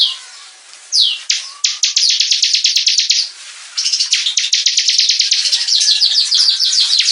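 Bar-winged prinia (ciblek) singing: two falling notes near the start, then fast runs of evenly repeated high notes, about ten a second, broken by a short pause around the middle and carrying on to the end.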